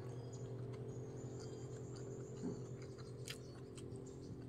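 Quiet sounds of eating by hand: a few faint clicks while food is chewed and picked apart with the fingers, over a steady low hum.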